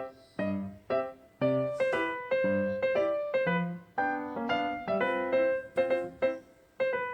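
Background music: a piano-like keyboard playing a melody over chords, with notes struck about twice a second and each one fading before the next.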